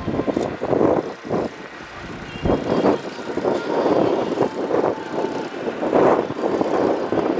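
Piston engines and propellers of two Grob 109B motor gliders flying a display overhead, the sound swelling and fading several times.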